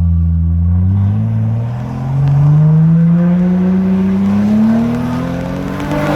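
Car engine and exhaust accelerating hard: the engine note dips about a second in, then climbs steadily in pitch for about five seconds, ending in a burst of crackles.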